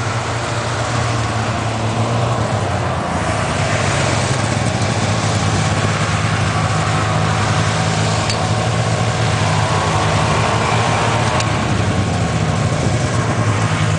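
Snowmobile engine idling steadily, its pitch rising slightly about three to four seconds in.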